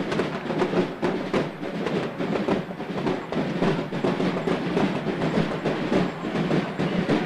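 Street parade sound on an old VHS tape: a band's music and percussion blurred into a dense, clattering noise of the procession and crowd.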